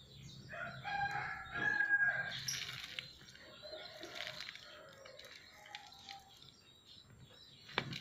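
A rooster crowing once, lasting about two and a half seconds, followed by fainter bird calls.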